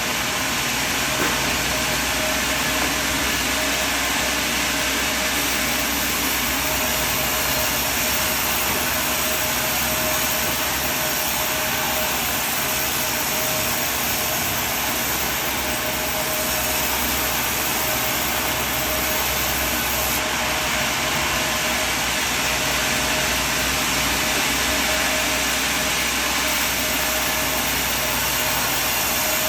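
Sawmill machinery running steadily: a constant machine noise with a steady mid-pitched whine.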